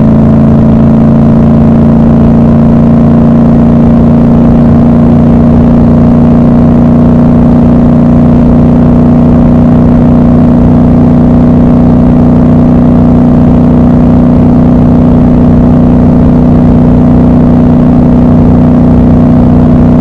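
Triumph Scrambler 1200 XC's 1200 cc parallel-twin engine and exhaust running at a steady cruise, heard from the rider's seat, its note rising slightly in the second half.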